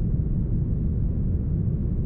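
Deep, smoothed brown noise: a steady, even rush with no variation, heavy in the bass and with little treble.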